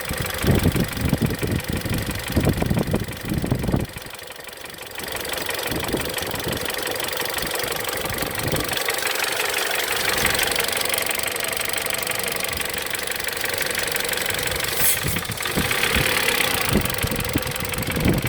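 Mitsubishi Lancer X engine running with a knock from the timing-chain tensioner, a sign of a worn or failing chain tensioner. The knocking is heaviest for the first four seconds, then gives way to a steadier, higher running sound.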